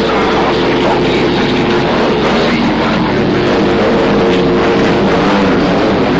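Receiver audio from an Icom IC-7300 tuned to 27.025 MHz in the 11-metre CB band: loud, steady static with several steady heterodyne tones from overlapping stations' carriers.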